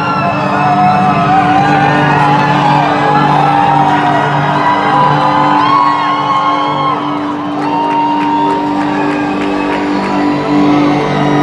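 Live hard rock band playing an instrumental intro, with loud, steady sustained low notes under wavering higher guitar lines, heard from the audience, with crowd shouts and whoops mixed in.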